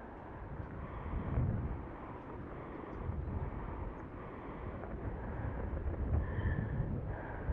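Wind buffeting an outdoor microphone: a low, noisy rumble that swells and fades every second or two, with faint higher tones coming and going.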